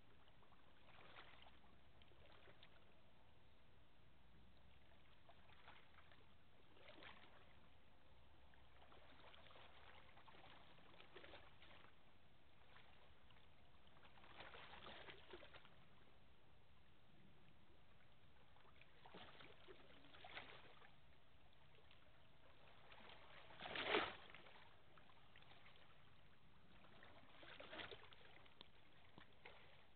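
Near silence: faint outdoor background with a few brief rustles or knocks scattered through, one clearly louder than the rest late on.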